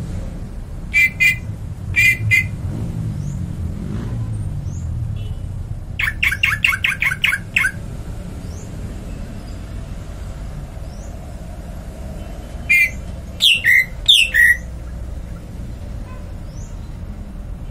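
A bird calling in short bursts. There are quick double notes about a second in and again a second later, a rapid run of about eight notes around six seconds in, and a few louder, falling squawks near the end. A steady low hum runs underneath.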